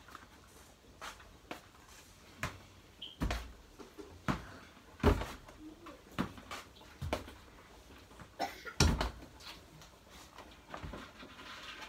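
A string of about ten irregular household knocks and clunks, the loudest about five seconds in and again near nine seconds.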